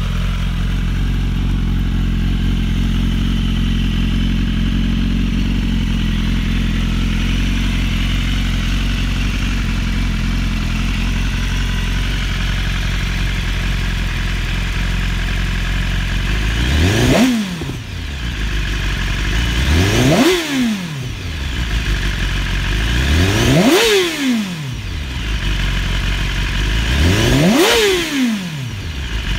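2016 BMW S1000RR inline-four sportbike engine, fitted with a carbon-fibre exhaust, idling steadily. After about 16 seconds it is revved four times, each rev a quick rise in pitch that drops straight back to idle.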